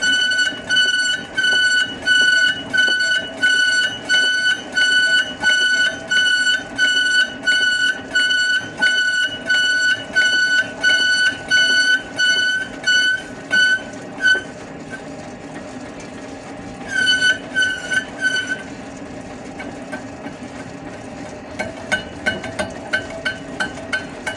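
Lathe running with a steady hum, with a high squealing tone that pulses evenly about one and a half times a second. The squeal stops about two-thirds of the way in, comes back briefly, then returns fainter near the end.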